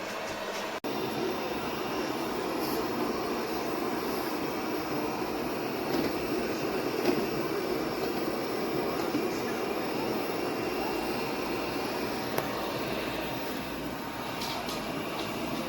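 Airzeen R7 robot vacuum running: a steady whir from its suction motor and brushes, with a couple of brief clicks.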